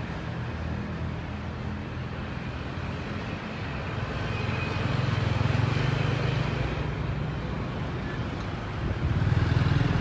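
City street traffic: vehicle engines running close by, a low steady hum that grows louder about halfway through and again near the end.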